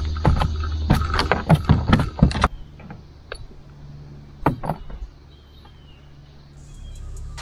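Irregular knocks and rattles as a just-caught largemouth bass is landed and unhooked in a small boat. They come thick for the first two and a half seconds, with a few more about four and a half seconds in. Faint music comes in near the end.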